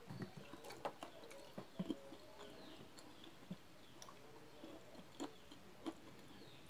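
Boiled peanuts being shelled by hand and chewed: quiet, irregular clicks and crackles of the damp shells splitting and of chewing, with a few sharper snaps.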